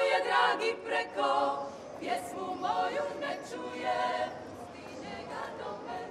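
Women's klapa group singing a cappella in close polyphonic harmony, the singing dropping to a quieter level after about two seconds.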